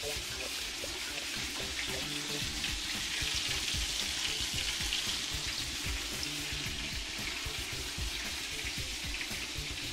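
Breaded chicken wings deep-frying in hot oil in a skillet: a steady sizzle.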